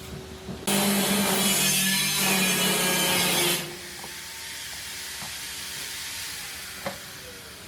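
A power tool grinding or cutting for about three seconds, starting and stopping abruptly, then a quieter steady hum.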